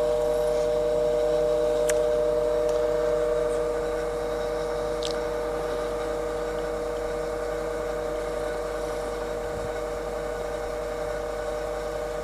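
Jones & Shipman 1311 cylindrical grinder running under hydraulic power, its hydraulic pump giving a steady whine while the table traverses and cross-feeds. The level eases slightly about four seconds in, with a few faint clicks.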